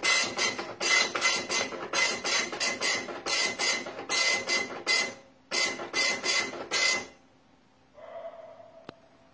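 Epson LQ-1070 24-pin dot-matrix printer printing a program listing: short buzzing passes of the print head, about two a second, with a brief pause just after five seconds. The printing stops about seven seconds in, leaving a faint hum.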